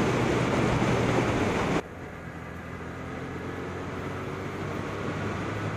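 Motorcycle riding at speed, with wind noise on the microphone. About two seconds in, the sound cuts abruptly to a quieter engine and road noise that slowly gets louder.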